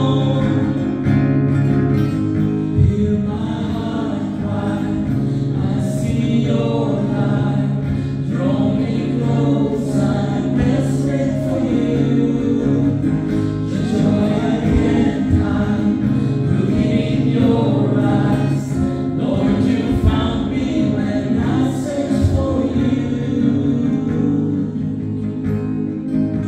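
Worship song sung by a group with the leader on microphone, over steady instrumental accompaniment with sustained chords.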